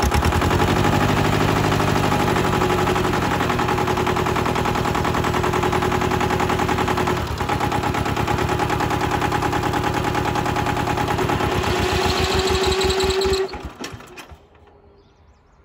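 Mitsubishi MT372 compact tractor's diesel engine running with a fast, even clatter, dipping briefly about seven seconds in. It stops near the end.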